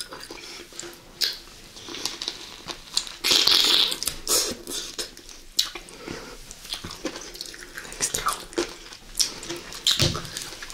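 Close-miked mouth sounds of eating a raw lemon: wet biting and chewing with many small clicks, and a louder noisy stretch about three seconds in.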